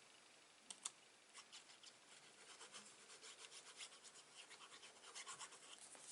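Faint rubbing and scratching of paper and cardstock being handled and pressed down, with two light clicks a little under a second in.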